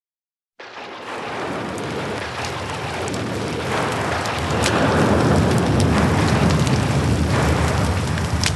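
Wind buffeting a handheld camera's microphone: a rushing roar with a low rumble and scattered crackles. It starts about half a second in and grows louder.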